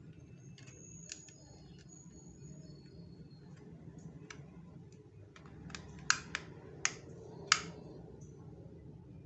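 Sharp light clicks and taps of hard plastic toy parts being handled, with four louder snaps close together about six to seven and a half seconds in.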